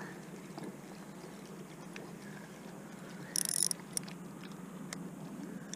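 Spinning reel cranked in a short burst about three seconds in, followed by a single click, while a hooked fish is being played on a bent rod; otherwise a faint steady background.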